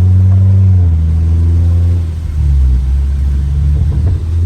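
2016 Nissan Altima SR's engine and exhaust under way, the note holding and then dropping about a second in as the throttle comes off, with a little popping from the exhaust near the end.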